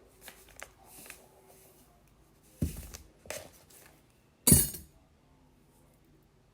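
Hard kitchen things clinking and knocking as a pinch of salt is added to a microwave mug: a few light taps, then three sharp knocks, the last the loudest.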